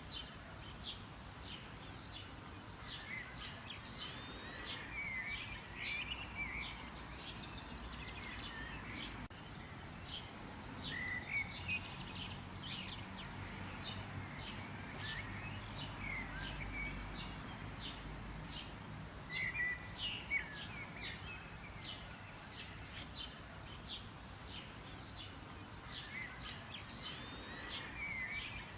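Several birds chirping and calling over steady outdoor background noise, with many short sharp chirps and some warbled notes.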